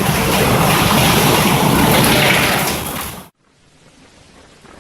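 Heavy storm: a loud, dense rush of wind and rain that cuts off suddenly about three seconds in, leaving only a faint rain-like hiss.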